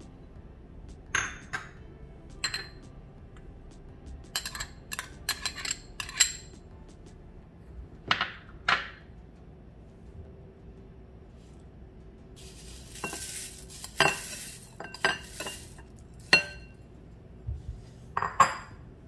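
Spoon clinking against a bowl as chopped vegetables and other bhel puri ingredients are spooned in, with scattered, irregular clinks. About two-thirds through there are a few seconds of dry rustling.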